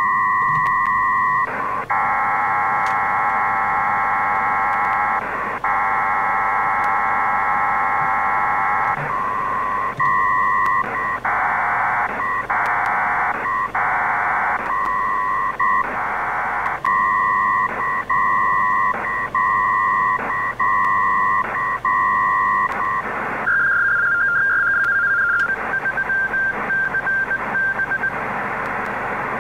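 PACTOR-III data signals over an HF radio link: short two-tone bursts alternate with longer multi-tone data blocks in a rapid back-and-forth as a small Winlink message is uploaded. Near the end the link is closed: a brief different tone pattern, then the data tones stop and only band hiss remains.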